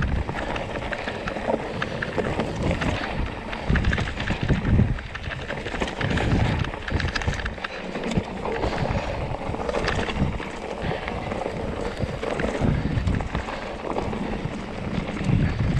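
Mountain bike descending a rough, rocky trail: tyres crunching over stones and the bike rattling and clattering over bumps, with wind rushing over the microphone.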